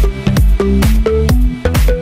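Electronic dance music with a steady kick drum at about two beats a second, cymbal strokes between the beats, and held bass and synth notes.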